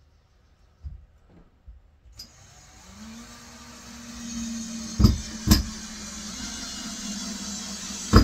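A few light knocks, then from about two seconds in a cordless screwdriver's motor runs steadily at one pitch, driving a screw into the wooden bed frame. Three sharp knocks break in, two close together in the middle and one near the end. The screwdriver's battery is nearly flat.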